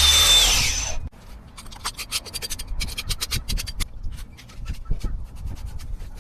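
Loose, crumbling stucco being scraped off a wall: many quick, scratchy strokes of a scraper over the rough surface. It is preceded by a loud power-tool whine that winds down about a second in.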